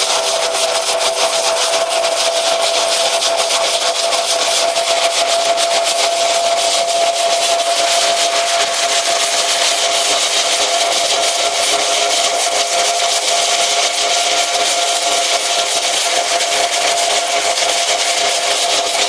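Hazelnut thresher (patoz) running, its red suction hose drawing harvested hazelnuts out of the pile with a continuous dense rattle over a steady machine whine.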